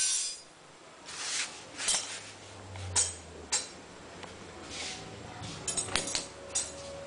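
Continental washing machine running with its hatch open: water and laundry splashing in irregular bursts, with a few sharp clinks and a low motor hum from about two seconds in.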